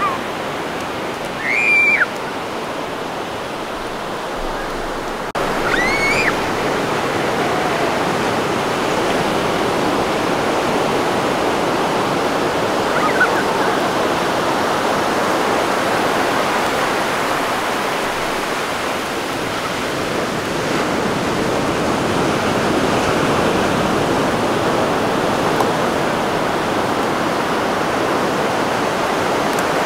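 Ocean surf breaking and washing up a sandy beach: a steady rushing wash of water that grows a little louder about five seconds in. Short high cries rising and falling in pitch sound about two and six seconds in.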